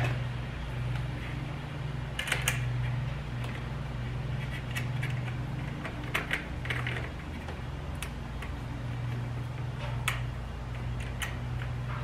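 Scattered metallic clicks and taps of a hand screwdriver driving screws through a zinc door hinge into a solar panel's metal frame, over a steady low hum.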